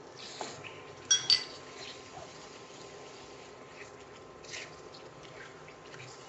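A metal spoon knocks twice against a cooking pan about a second in, each knock with a brief metallic ring, followed by a few faint scrapes in the pan.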